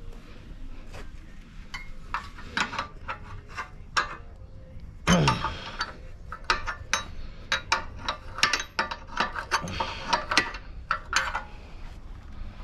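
Hand tools working on metal: irregular clicks and clinks as a nut is turned on a threaded stud, with one louder clank about five seconds in.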